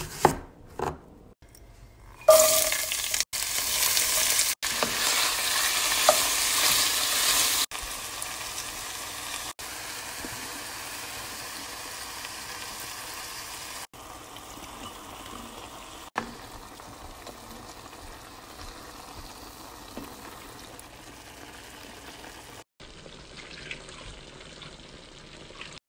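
A few knife chops through an onion on a cutting board, then venison and vegetables sizzling in a pot, a steady hiss that is loudest in the first several seconds and softer later, broken by abrupt cuts.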